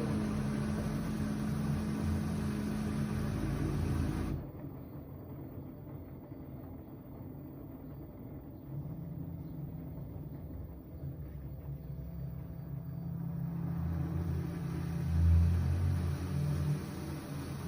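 LG front-loading washing machine running in suds lock: a steady motor and drum noise with a hum cuts off abruptly about four seconds in, followed by a lower rumbling hum that rises again near the end.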